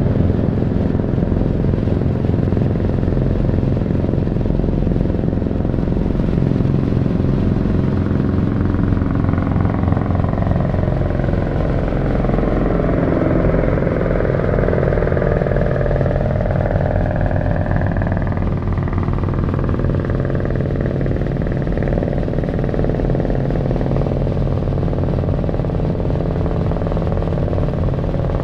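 A motor vehicle's engine runs steadily, its low pulsing exhaust note continuous throughout. Its tone shifts in a slow sweep through the middle.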